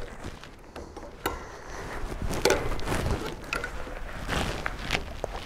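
Two spot-welded sheet-steel strips held in a vise being pried apart with end-cutting pincers: irregular metal clicks, scrapes and creaks as the sheets peel apart. This is a peel test of the spot weld, tearing the weld nugget out of one sheet.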